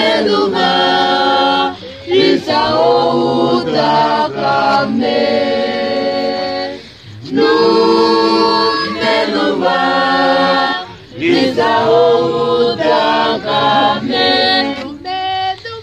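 A group of children singing a worship song together without instruments, in long held phrases with brief breaks between them.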